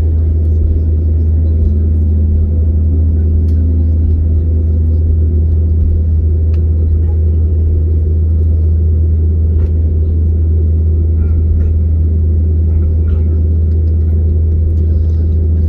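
Steady low drone inside the cabin of an Airbus A321neo, its CFM LEAP-1A engines running at an even, low power with no spool-up, and a few faint clicks and rattles scattered through it.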